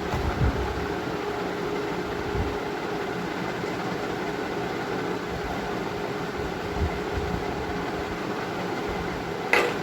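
Steady mechanical hum and hiss of room background noise, with a few soft low thuds and a short sharp click near the end.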